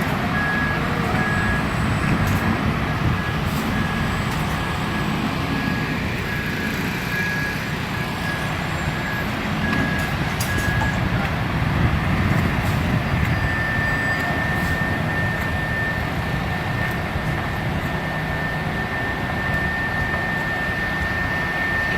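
Concrete mixer truck's diesel engine running steadily while it discharges, with a reversing alarm beeping for the first half. From a little past the middle a steady high tone sounds instead.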